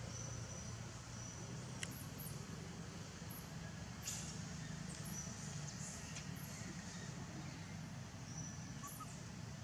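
Outdoor ambience: a steady low hum with a few faint, short high-pitched chirps and two sharp clicks, one about two seconds in and one about four seconds in.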